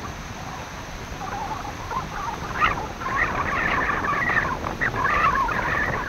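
Steady noise of wind and surf under a stormy sea, joined about two and a half seconds in by a loud run of chattering, squawking animal calls that carries on to the end.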